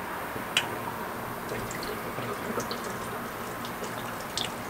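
Pineapple juice pouring and dripping from an opened can into a blender jar, with a light click about half a second in.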